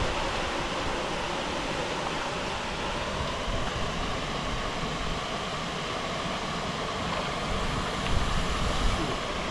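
Water pouring over a small weir, a steady, even rush of falling water.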